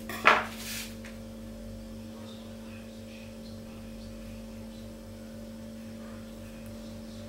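A single short knock just after the start, then a steady hum.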